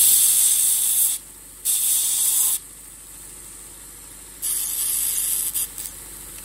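1x42 belt sander grinding the cut end of a small piece of stainless steel bar to deburr it: three hissing bursts of about a second each as the steel is touched to the running belt, with the sander running more quietly between them.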